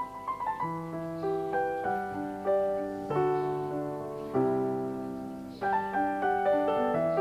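Background piano music: a gentle melody over chords, with notes struck and left to fade.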